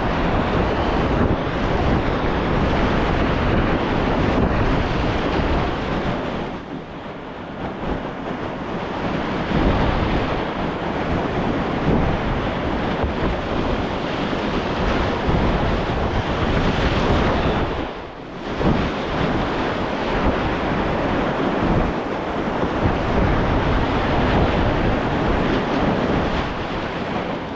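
Loud, continuous rush of whitewater river rapids, with wind buffeting the microphone; the rush briefly drops about 7 seconds and 18 seconds in.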